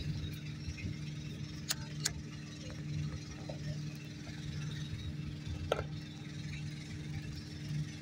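A motor running steadily with a constant low hum, with a few sharp clicks or clinks, one about two seconds in, another soon after, and one near six seconds.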